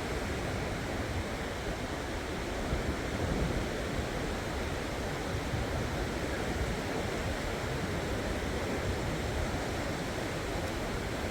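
Steady surf washing on the shore, with wind rumbling on the microphone.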